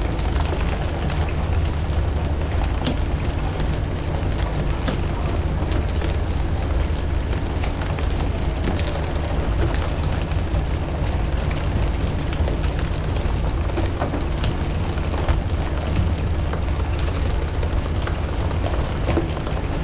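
A fishing boat's engine running steadily with a low rumble, over a rushing noise, with scattered sharp clicks and knocks.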